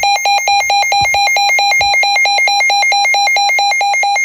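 Midland WR-120EZ weather radio sounding its alert alarm on test: a loud, rapidly pulsing high-pitched beep.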